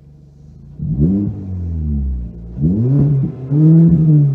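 Muffler-deleted 2019 Kia Optima LX non-turbo four-cylinder engine, heard from inside the cabin, idling and then revved three times, the pitch climbing and falling back with each rev. The exhaust is a little louder than a normal car's because the muffler has been removed.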